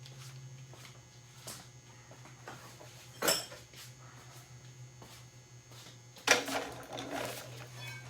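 Metal hand tools clinking and clanking while being handled, with a sharp clank about three seconds in and a burst of louder clanks just after six seconds, over a steady low hum.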